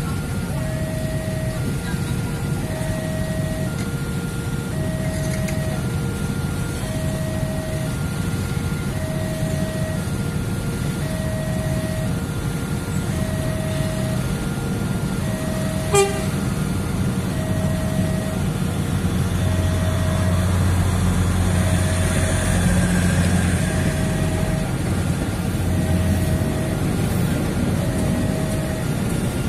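Level-crossing warning alarm ringing on and off in a steady repeating pattern of two alternating tones. In the second half it is joined by the low rumble of the KA Prameks train running over the crossing, loudest about two-thirds of the way through. There is a single sharp click about halfway.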